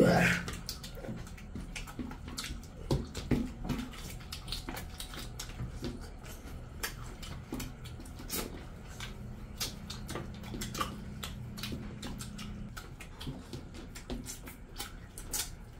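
Eating noises of two people eating curry and rice by hand: many wet chewing and lip-smacking clicks, with fingers mixing rice on steel plates. A short vocal sound comes at the very start and is the loudest moment.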